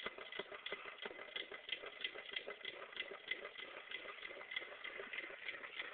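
Homemade paint-can Stirling engine running fast, its wire crank and coat-hanger connecting rods clicking rapidly and evenly, several clicks a second.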